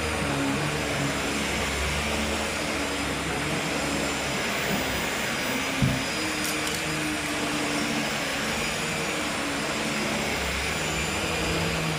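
Hoover H Upright 500 Plus upright vacuum cleaner running steadily, its motor hum shifting slightly in pitch, with a single brief knock about halfway through.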